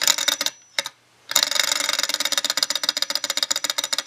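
Alcohol-fired model Stirling engine clattering with a rapid mechanical ticking as its flywheel is flicked: a short burst that dies away, then about a second in it catches and keeps ticking steadily. The burner is barely heating it enough to keep it going.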